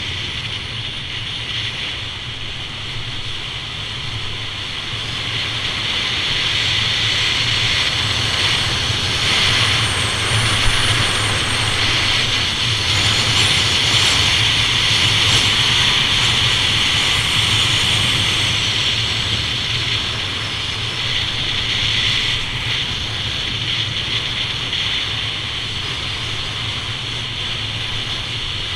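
Steady rush of wind over a body-worn action camera and the hiss of sliding fast over packed snow at about 30–35 mph, swelling a little around the middle as the speed rises.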